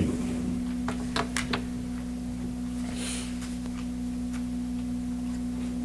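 A steady low electrical hum, with a few light clicks about a second in and a brief rustle of paper being handled at the podium.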